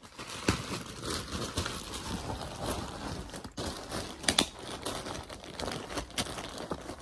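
Irregular rustling and crinkling with scattered clicks, from the phone being handled and rubbing against clothing close to its microphone; a sharper pair of clicks comes a little past the middle.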